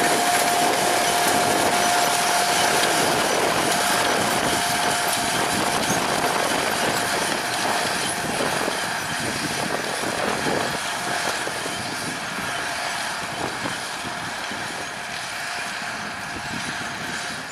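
MTZ 1221 tractor's six-cylinder diesel working steadily under load while pulling a corn planter, growing gradually fainter as it moves away. A steady whine is heard at first and fades out a few seconds in.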